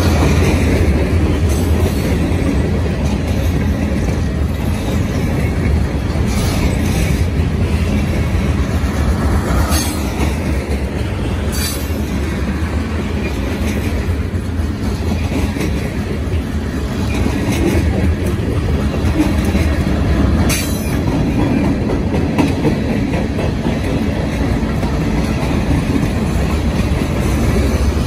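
Freight cars of a passing train (covered hoppers and tank cars) rolling by close at speed: a steady, loud rumble of steel wheels on rail with clickety-clack. A few brief sharp high sounds stand out about ten, twelve and twenty seconds in.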